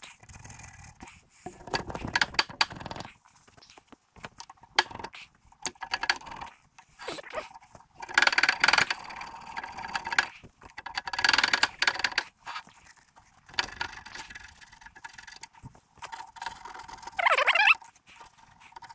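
Old gasket residue being scraped off the metal mating surface of a Bendix Tu-Flo 500 air compressor, in irregular strokes of about a second with short pauses between. A brief wavering squeal near the end.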